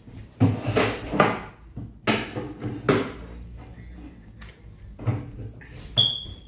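A series of short knocks and clatters, about seven, the loudest in the first three seconds, with a brief high tone near the end.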